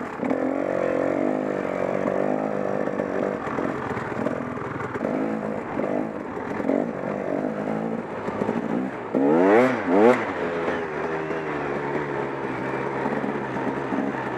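KTM 300 XC-W's two-stroke single-cylinder dirt bike engine running on a trail ride, its pitch rising and falling as the throttle is worked. About nine seconds in it gives a quick, sharp rev up and back down, the loudest moment.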